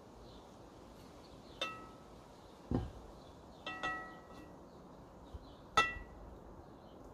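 Glass bowl being knocked while fish is handled over it: a few light glassy clinks, each with a brief ringing tone, the loudest about two-thirds of the way through. A dull knock comes in between the clinks.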